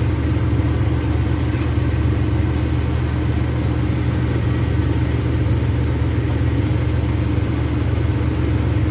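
Steady low machine drone, running evenly without change.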